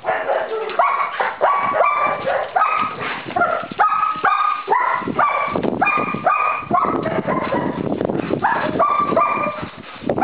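German Shepherd barking rapidly and without pause, short high-pitched barks about two or three a second, with a brief lull near the end.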